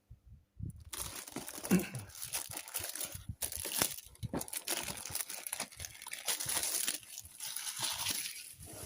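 Crinkling and rustling of a trading-card box and its packaging being handled and opened, with many small clicks and knocks from about a second in.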